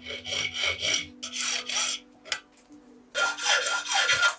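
Hand hacksaw cutting a brass bar held in a vise: quick back-and-forth strokes, about four a second, for the first two seconds. After a short pause with a single click, a louder, longer run of sawing follows near the end.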